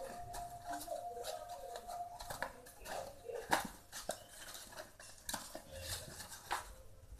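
Sheet of paper being folded and pinched into a pillow-shaped gift box by hand, crinkling with irregular clicks and taps, the sharpest about halfway through.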